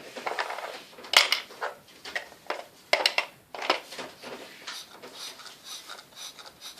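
Several sharp plastic clicks, with a rattling, fizzy clatter between them, from a plastic Octonauts Octo-Lab playset. The two loudest clicks come about a second in and near the three-second mark.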